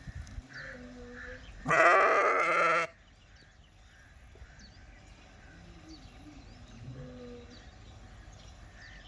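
Sheep bleating: one loud, wavering bleat lasting about a second, starting nearly two seconds in, with fainter bleats before and after it.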